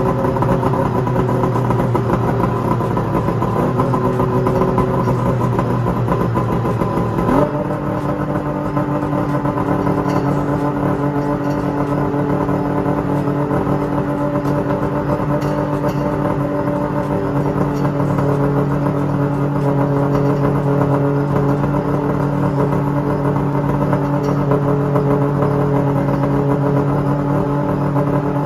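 Snowmobile engine running steadily. About seven seconds in there is a click and the engine note steps up slightly, then holds steady at the new speed.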